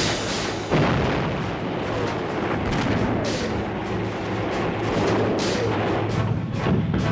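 A loud boom just under a second in, followed by scattered gunshots and blasts, with music underneath.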